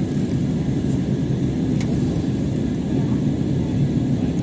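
Steady low rumble of airliner cabin noise on approach: jet engine and airflow noise heard from inside the passenger cabin, with a couple of faint ticks.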